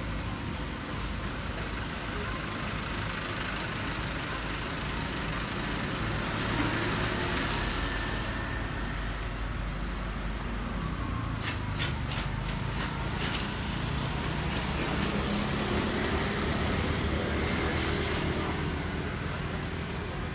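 Street traffic: vehicle engines running and passing, swelling about six seconds in, with a few sharp clicks about eleven to thirteen seconds in.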